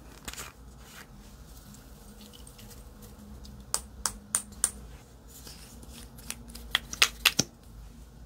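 Hands working slime: a series of sharp clicks and snaps over a faint rustle, four evenly spaced a little past halfway and a quicker group of four or five near the end.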